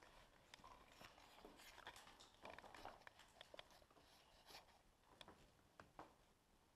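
Near silence, broken by faint scattered crunches, clicks and scrapes of footsteps on debris-strewn floor.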